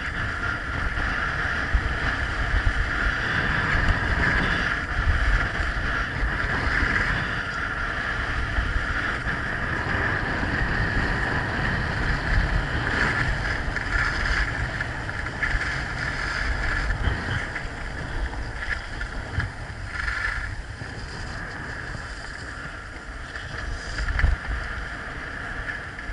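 Wind rushing over a moving action camera's microphone, mixed with skis scraping and hissing on groomed snow during a downhill run. The noise holds steady, with one louder moment near the end.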